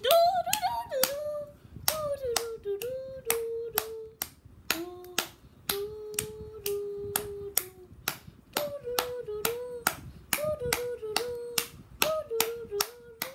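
Sharp claps or taps, about two to three a second, with a voice humming a slow tune over them.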